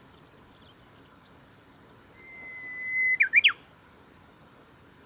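Japanese bush warbler singing its 'hoo-hokekyo' song once, starting about two seconds in: a long, steady whistle that swells in loudness, then a quick flourish of three sharp notes.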